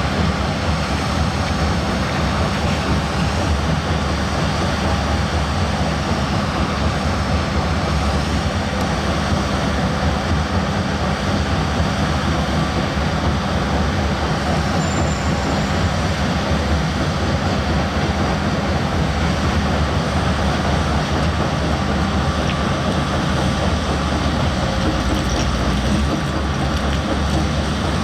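Diesel engine of a heavy earthmoving machine running steadily, a constant loud rumble without pauses.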